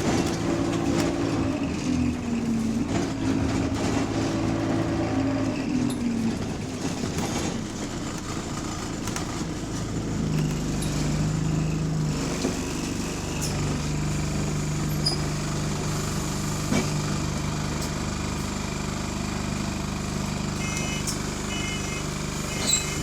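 Diesel engine of an Arriva ENL-class bus running, its pitch dropping over the first few seconds and then settling into a steady low drone; this batch of buses runs in limp mode with a turbo fault. A series of short high beeps sounds near the end.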